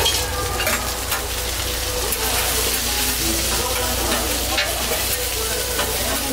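Diced chicken sizzling steadily on a hot flat steel griddle, while two metal spatulas scrape across the plate and toss the pieces, with short scrapes and clinks.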